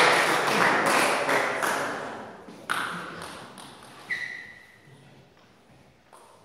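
Voices and noise in the hall fade away over the first two seconds. Then a table tennis ball gives a sharp knock, then a ringing ping, and near the end a few light ticks as it is bounced.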